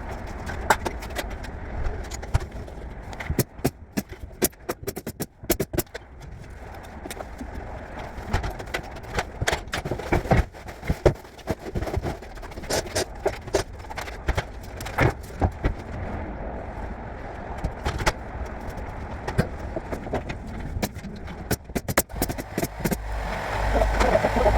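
Interior carpentry finishing work: irregular sharp knocks and clicks, some in quick clusters, over a steady low rumble that grows louder near the end.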